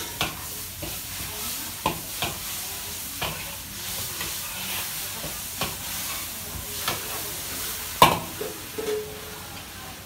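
Food sizzling in a large wok as a long-handled metal spatula stirs and scrapes it, with irregular clanks of metal on metal about once a second. The loudest clank comes about eight seconds in.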